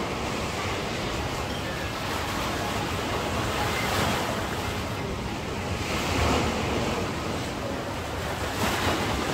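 Sea waves breaking and washing up on a beach, the surf swelling several times, with wind buffeting the microphone.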